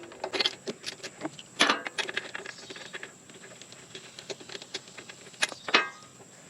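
Metal hand tools clinking, rattling and knocking in irregular handling noise, with louder clanks about a second and a half in and again near the end.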